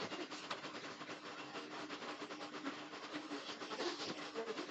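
Pencil scratching and rubbing on paper in quick shading strokes, over a faint steady hum.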